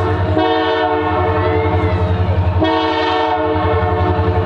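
Diesel locomotive's multi-chime air horn sounding as the train arrives: one blast ends just at the start, a long blast of about two seconds follows, and another begins about two and a half seconds in. Under the horn runs the locomotive's steady low engine rumble.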